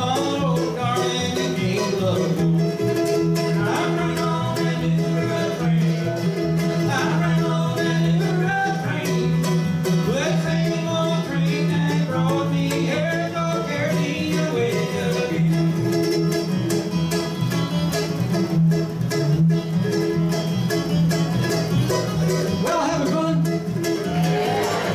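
A bluegrass trio of mandolin, acoustic guitar and upright bass playing a song at a steady beat.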